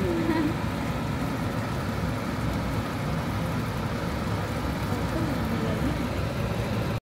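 Steady low rumble of kitchen background noise while a pan of gravy sits on a lit gas burner, with a faint voice briefly near the start and again later. The sound cuts off suddenly just before the end.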